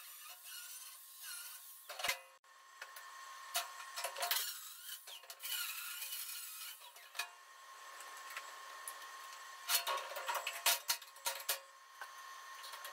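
Handheld angle grinder grinding steel weld on a loader bucket's edge, in several bursts over the first seven seconds. Near the end, a run of short metal clanks and knocks as steel clamps are taken off and set down.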